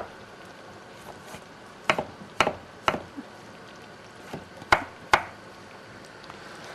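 Knife slicing tomatoes on a wooden cutting board: sharp, irregular knocks of the blade striking the board, about six clear ones with a few fainter taps between.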